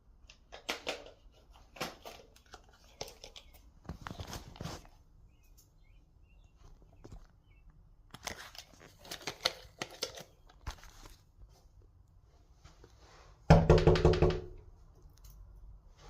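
Scattered rustling, crinkling and clicking handling noises. About two seconds before the end comes a loud, roughly one-second sound with a steady pitch, which cuts off sharply.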